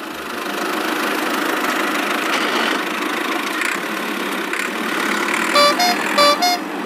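Steady engine-like rumble as a toy tractor pulling a trailer moves along, then two short two-note horn toots about half a second apart near the end.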